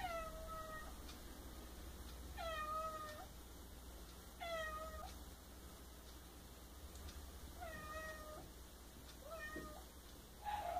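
A cat meowing faintly, five short meows every two to three seconds, each sliding slightly in pitch.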